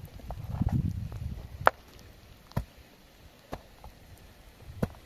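A low rustling, then four sharp knocks about a second apart, the first the loudest.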